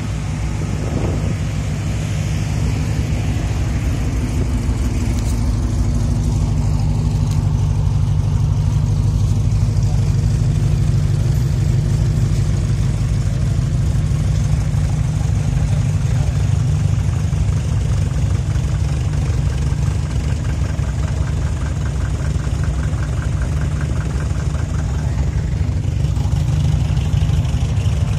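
Dodge Challenger SRT8's V8 idling steadily with a low rumble, among other cars idling in a queue.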